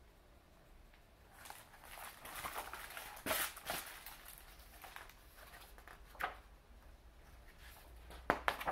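Pages of a picture book being handled and turned: paper rustling with a few sharp flicks, the loudest about three seconds in and a quick pair near the end.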